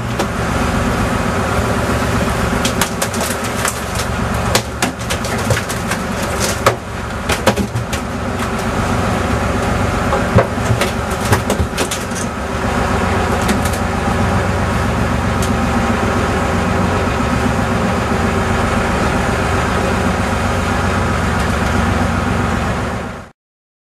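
Fishing boat's engine running steadily under way, with scattered knocks and clicks of gear being handled on deck between about three and twelve seconds in. The sound cuts off abruptly near the end.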